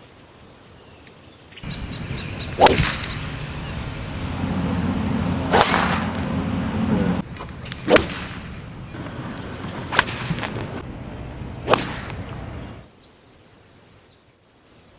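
TaylorMade Qi10 club heads striking golf balls: five sharp cracks of full shots, a couple of seconds apart.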